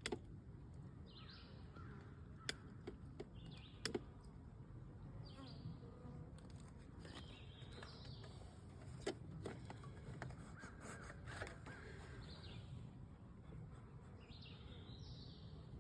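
A bird calling over and over in short calls every second or two, with a few sharp clicks in between.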